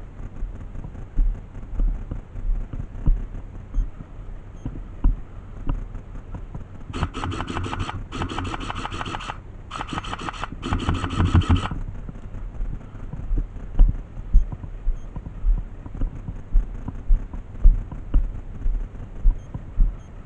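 Four quick full-auto bursts from an airsoft electric gun, each about a second long, in quick succession starting about seven seconds in. Regular low thumps run about once a second underneath.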